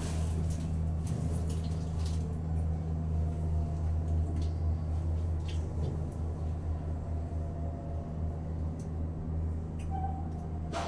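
Steady low hum inside an Otis traction elevator car, with a short tone near the end.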